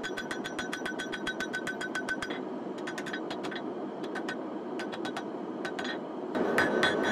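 Hammer striking a hot steel nata blank on an anvil while forging in the single bevel: a fast, regular run of blows with a ringing note. About two seconds in the blows become sparser and lighter, losing the ring, and near the end fast ringing blows start again, louder, over a steady rushing noise.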